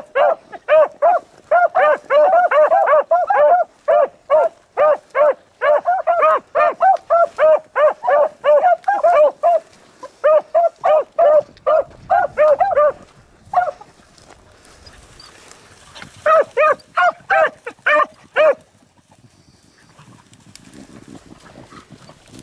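Beagles baying while running a rabbit: rapid, overlapping barks from several hounds. The barking breaks off a little past halfway, comes back briefly, then stops.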